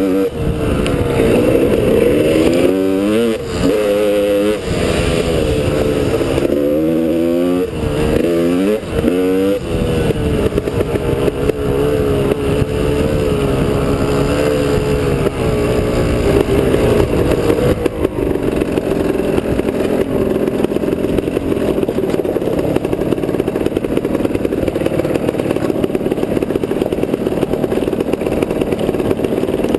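Two-stroke dirt bike engine under way, the throttle surging up and down again and again at first, then settling into a steadier, lower note.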